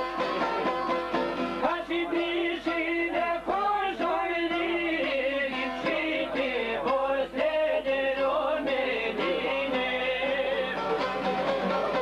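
Albanian folk song played on plucked long-necked çifteli lutes, with a man's voice singing from about two seconds in.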